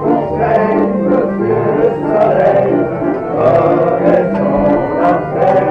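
Barrel organ (orgue de Barbarie) playing a dance tune: held notes over a moving bass line.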